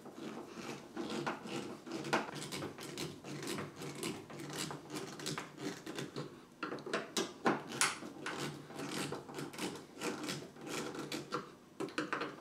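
Hand screwdriver driving screws into the plastic mounting of a washing machine's new water inlet valve: a run of small irregular clicks and ticks, several a second, as the screws are turned down tight.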